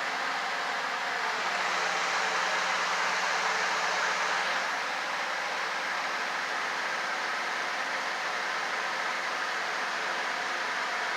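Lasko box fan running, a steady rush of air with a faint hum underneath, a little louder for a couple of seconds near the start.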